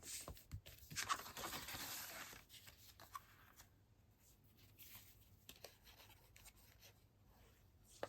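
Paper and card being handled on a craft desk: a short rustle of paper about a second in, a few light taps, then near silence.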